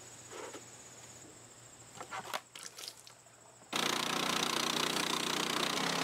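Faint background with a few light clicks, then, about two-thirds of the way in, a small gas-engine band sawmill starts suddenly and runs steadily, its blade cutting through a log.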